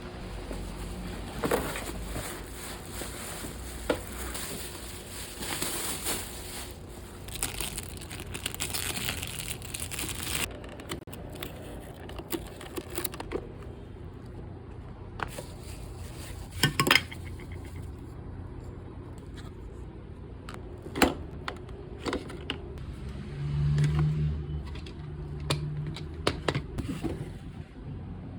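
Crinkling, clicks and knocks from handling a coffee maker and its packaging, with a short low hum heard twice near the end.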